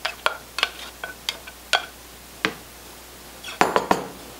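A nylon slotted spatula knocking and scraping against a ceramic bowl as cooked beans are scraped out into a pot of chili: a string of sharp clinks, with a louder cluster of knocks near the end.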